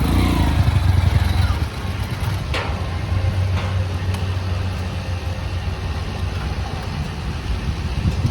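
A small engine idling steadily, a low rumble that is a little louder for the first second or so.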